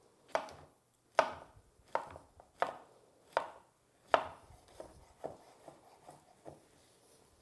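Chef's knife dicing crimini mushrooms on a wooden cutting board: six sharp knocks of the blade on the board, each about three-quarters of a second apart, then a run of quicker, softer taps near the end.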